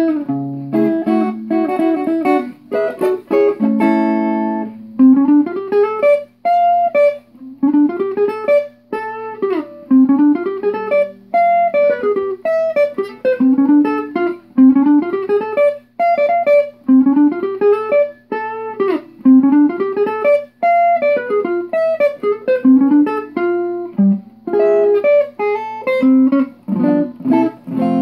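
Solo archtop jazz guitar playing a swing-era guitar piece: strummed chords for the first few seconds, then quick single-note runs, with chords again near the end.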